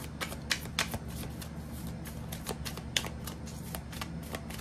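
A deck of tarot cards being shuffled by hand: a quick, irregular string of light clicks and flicks as the cards slide and slap against one another.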